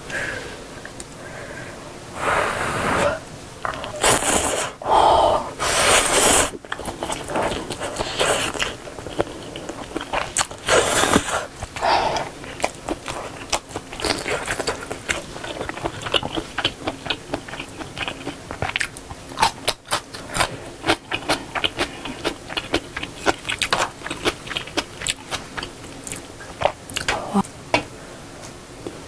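Close-up eating sounds of ramen noodles and sausage from Korean army stew: a few loud slurps in the first several seconds and again around the middle, then steady chewing made up of many quick small clicks and smacks.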